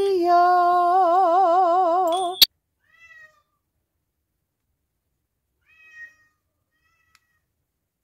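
A cat's long, drawn-out meow with a wavering pitch that cuts off abruptly about two and a half seconds in, followed by a few faint, short mews.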